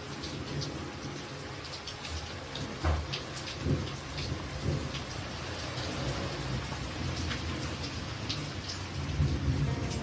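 Steady rain falling, with many separate drops hitting close by. Under it a low rumble swells about three seconds in and again near the end.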